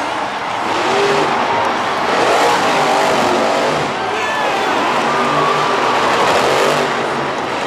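Monster truck's supercharged V8 engine revving hard, its pitch rising and falling, over a dense steady wash of noise.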